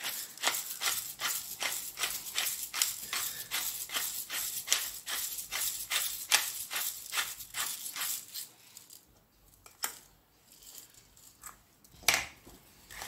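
Handheld stainless steel spice mill grinding salt and pepper, a rapid ratcheting rattle of about three to four clicks a second as it is twisted. It stops after about seven seconds and gives one sharp click near the end.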